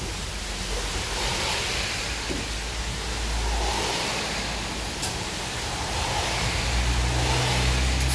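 City bus engine idling at the stop, a low rumble under a steady hiss of rain and wet road noise; the low rumble grows louder and heavier near the end.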